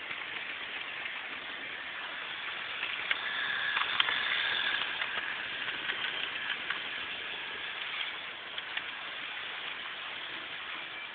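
Street traffic noise through a cellphone microphone, swelling as a vehicle passes about three to five seconds in, with a faint high tone and a few sharp clicks.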